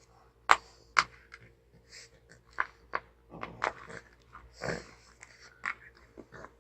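A pug snoring and snuffling, with short irregular snorts and clicks from its nose and mouth. About three-quarters of the way through comes one longer, fuller snore-breath.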